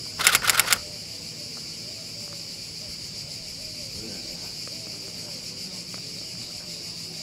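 A quick cluster of sharp rustling clicks in the first second, the loudest sound, then steady high-pitched chirring of insects.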